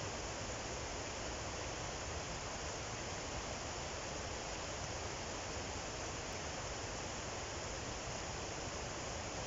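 Steady, even rushing noise, unchanging throughout, with no distinct strokes or knocks standing out.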